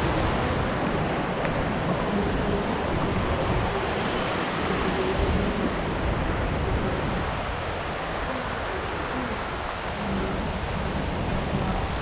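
Steady rushing noise of wind buffeting the microphone, with an uneven low rumble.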